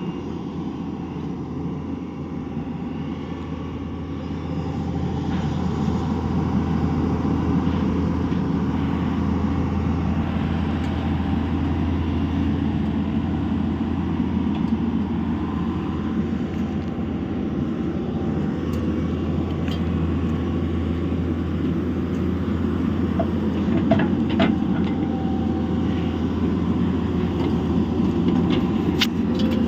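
Excavator diesel engine running steadily under load, growing louder a few seconds in, with a few sharp metallic clanks in the second half.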